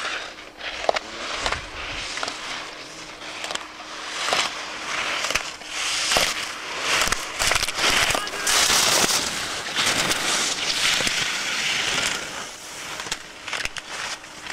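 Slalom skis carving and scraping across hard snow: a hiss that swells with each turn, broken by sharp knocks as slalom gate poles are struck.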